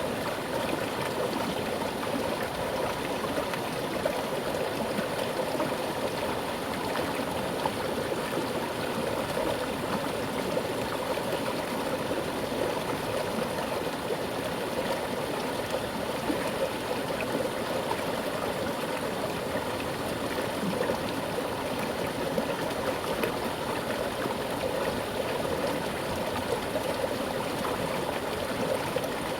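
Mountain river flowing over rocks with a strong current: a steady, even rush of water.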